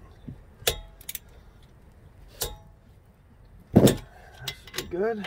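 Wrench and socket working the strut-to-steering-knuckle bolts: a few sharp metallic clicks and knocks, some with a brief ring, the loudest near four seconds in. This is the final 90-degree angle turn on the bolts after torquing them to 75 ft-lb. A single spoken word follows at the end.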